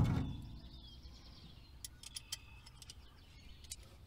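Birds chirping faintly over a quiet outdoor background, with a knock right at the start and a few light clicks as hands work on parts in the engine bay.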